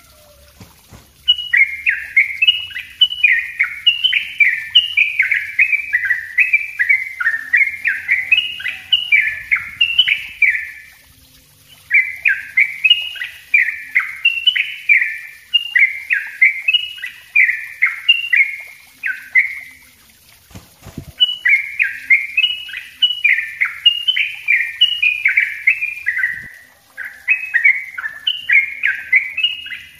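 Caged yellow-vented bulbul (trucuk) singing its fast chained 'ropel' song: long runs of quick, bubbly whistled notes, several a second, broken by short pauses about 11, 20 and 26 seconds in.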